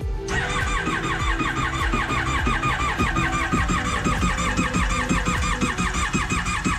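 Yamaha VXC WaveRunner's replaced engine cranking on its electric starter without catching: a fast, even churning rhythm with a high, repeating whine, starting a moment in. The engine cranks but does not start.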